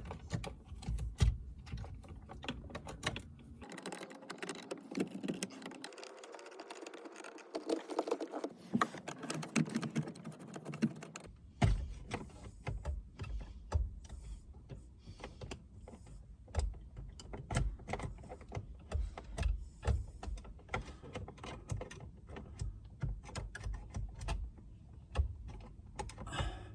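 Irregular small clicks and taps of a flathead screwdriver prying and working at a steering-wheel airbag retaining pin, metal and plastic clicking as it fights to come loose.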